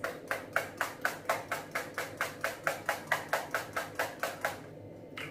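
Small fine-mist spray bottle being pumped rapidly, about five short spritzes a second, some twenty in a row, stopping shortly before the end.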